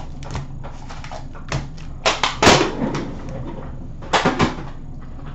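Metal trading-card tin and its foil packs being handled on a glass display counter: a few sharp knocks and clatters, the loudest about two and a half seconds in and another short cluster near the end.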